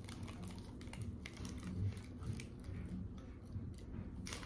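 A person chewing a mouthful of egg roll close to the microphone, with many small irregular clicks of the mouth and food.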